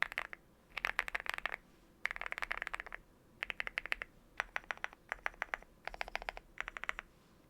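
Typing on a Leobog Hi75 mechanical keyboard with stock, unlubed Leobog Juggle V2 switches: rapid keystroke clicks in short bursts of about a second, with brief pauses between bursts.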